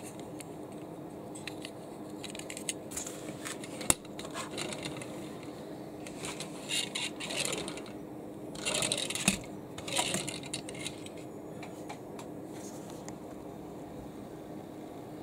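A small die-cast toy car being handled and set down on a table: scattered light clicks, one sharp click about four seconds in, then bursts of rattling and scraping about seven and nine seconds in.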